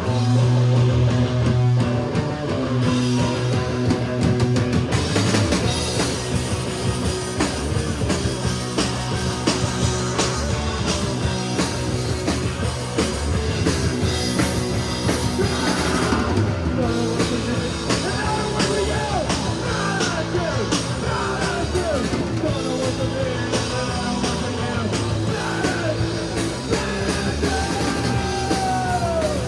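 A rock band playing live: electric guitar, bass and drums, with a voice singing over them in the second half.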